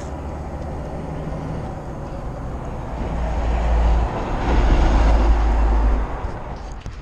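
Traffic crossing the bridge: a low road rumble that swells about three seconds in and falls away about a second before the end.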